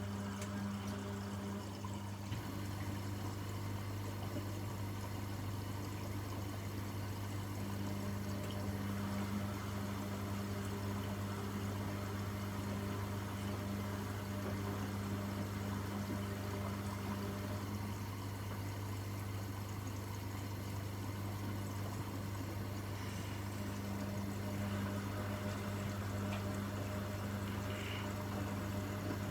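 Washing machine running, with water rushing inside it over a steady low hum.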